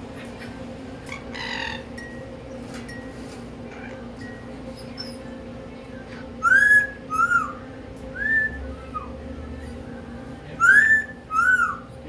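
An Amazon parrot whistling. A loud pair of rising-then-falling whistles comes about six and a half seconds in, a couple of quieter whistles follow, and a second loud pair comes near the end. A brief call sounds about a second and a half in, over a steady low hum.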